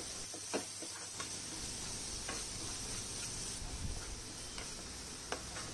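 A black plastic spatula stirring onion and chilli-powder masala frying in a non-stick kadai, giving a few light clicks against the pan over a faint steady hiss.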